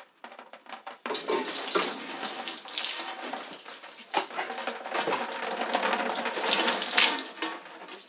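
Water spraying out of the hot-water boiler's open pipe fitting where the expansion tank has just been unscrewed, splashing around a hand held over the pipe. It starts suddenly about a second in, after a few faint clicks, and keeps gushing with surges.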